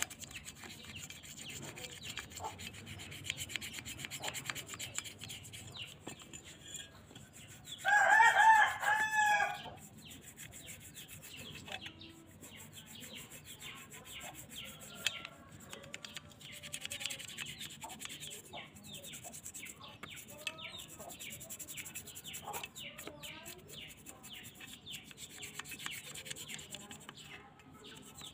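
Toothbrush bristles scrubbing wet mud and rust off a metal motorcycle pedal bracket, in quick scratchy strokes. About eight seconds in, a rooster crows loudly once for about a second and a half.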